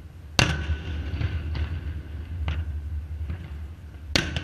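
Aerial fireworks exploding: a sharp bang about half a second in, a few fainter pops, then a second sharp bang near the end, each trailing off in crackle, over a steady low rumble.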